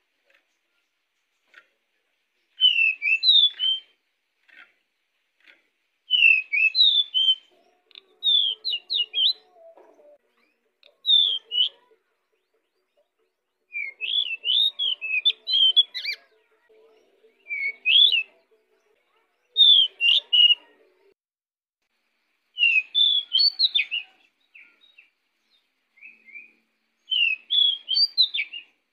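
Male pied bushchat (decu) singing actively: short phrases of quick, sharp whistled notes, repeated every two to three seconds.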